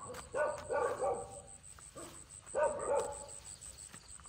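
A dog barking, a quick run of barks about half a second in and another run shortly before three seconds.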